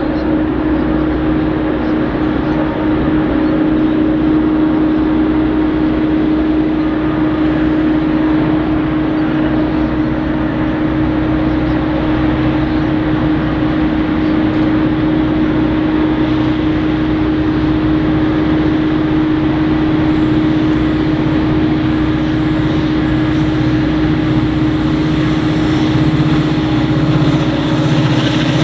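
Diesel-electric locomotives of a loaded grain train running under power as they approach, led by C class locomotive C509: a steady engine drone with a strong constant hum. Near the end the lower engine hum grows stronger as the locomotives come close.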